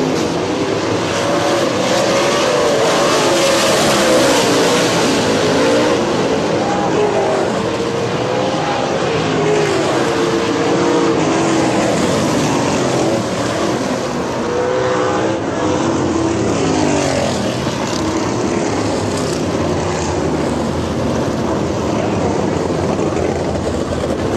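Several V8 sprint car engines running around a dirt oval, their pitch rising and falling as the cars rev and pass.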